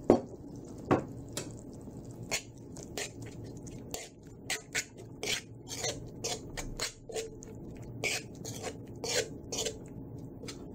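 A utensil scrapes and clinks against a wok in quick, irregular strokes as a small amount of paste and sauce is stirred.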